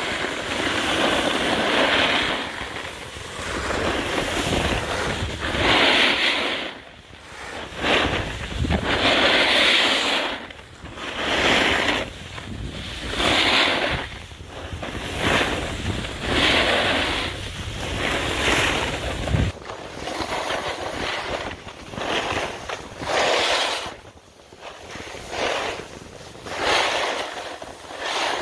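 Snow-sport edges scraping and sliding over packed snow on a groomed run, swelling and fading with each turn about every one and a half to two seconds, with wind on the microphone.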